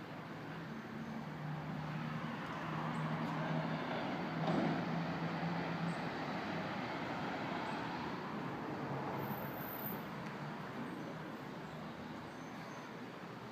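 Road traffic: a passing vehicle's engine hum and tyre noise swell to a peak about four to five seconds in, then fade away slowly.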